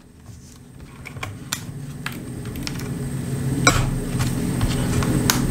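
Small, sparse plastic clicks and taps as a plastic pry tool flips up a ribbon-cable connector's latch and the flat cable is handled, the sharpest click a little past halfway. Underneath, a low steady hum slowly grows louder.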